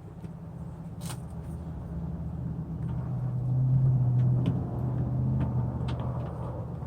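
Low engine-like rumble that swells about halfway through and then eases off, with a few light clicks over it.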